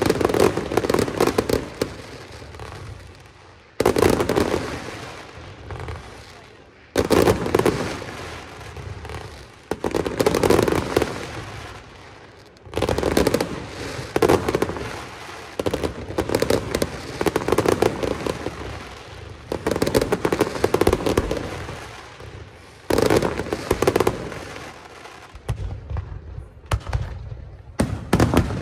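Fireworks display: shells bursting in steady succession, a new one about every three seconds. Each starts suddenly and crackles densely as it fades.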